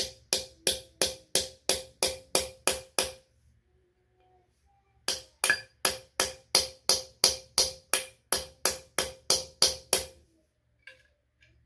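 Hammer tapping a socket held over the metal hub of a washing machine drive coupler, driving it onto its shaft. There are two runs of even, ringing taps at about three a second, with a pause of about two seconds between them.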